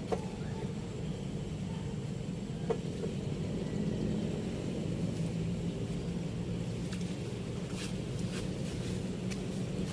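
A steady low rumble, with a couple of light knocks, one near the start and one nearly three seconds in.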